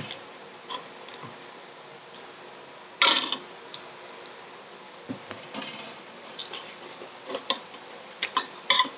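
Small clicks, taps and clinks of eating at a table: utensils, tableware and egg handled while eating balut. There is one louder knock about three seconds in and a quick run of sharp clicks near the end.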